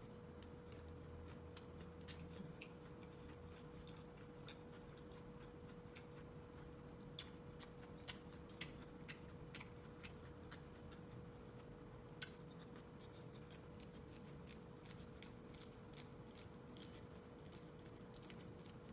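Near silence with a faint steady hum, broken by scattered sharp little clicks as teeth bite kernels off a cooked corn cob, several of them close together in the middle stretch.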